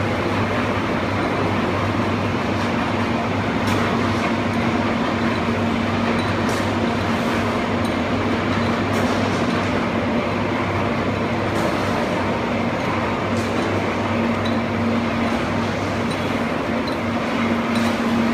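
Compost fertilizer granulating machinery running steadily: a dense, even mechanical din with a low hum and a steady tone, and a few faint ticks scattered through it.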